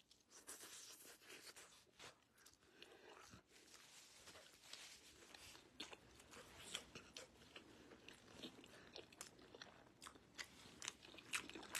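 Near silence with faint, irregular clicks and crackles close to the microphone.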